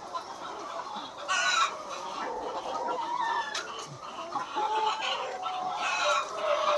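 A large flock of laying hens clucking and calling together, with many overlapping calls and one louder call about a second and a half in.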